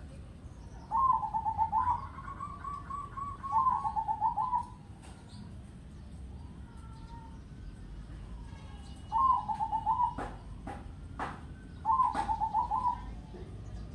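Zebra dove (perkutut), a crossing-bred cage bird, singing its rolling, loud cooing song: four bouts of quick trilled coos, two in the first half and two in the second. A few sharp clicks sound between the later bouts.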